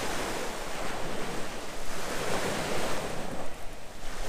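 Sea waves washing on the shore with wind noise, a steady rushing that swells and eases every second or two.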